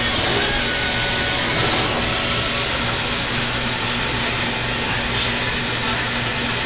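A motor running steadily: a low, even hum under a constant whooshing noise.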